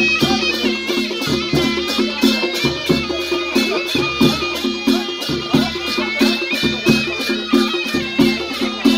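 Traditional folk dance music: a reedy wind instrument plays a wavering melody over a fast, steady beat of sharp, evenly spaced strikes.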